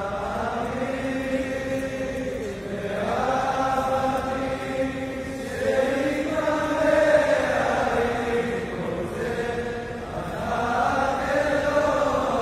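A large group of men singing together in unison, holding long notes and moving slowly from one to the next in a chant-like melody.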